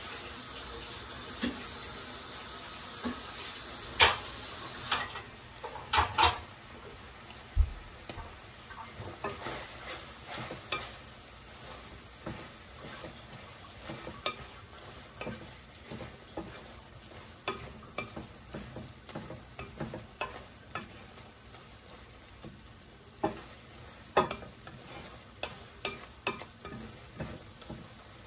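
Wooden spoon stirring and scraping clam adobo in a stainless steel pan, with many sharp knocks of the spoon against the pan over a steady sizzle of frying. The sizzle is louder for the first five seconds, and the knocks come thickest after that.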